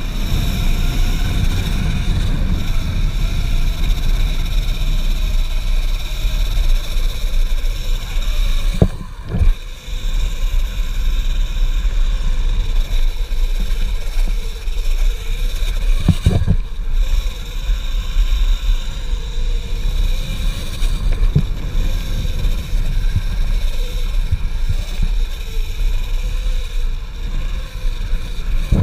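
Electric mountainboard ridden fast over a rough dirt track: heavy wind and tyre rumble on the rider's camera, over a steady high whine from the chain-drive motors. The rumble drops out briefly twice, about nine and sixteen seconds in.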